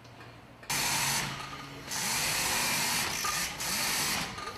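A powered driver tightening the screw of a steel band clamp (the front harness) on a GBU-54 bomb body, running in two long stretches that start suddenly about a second in.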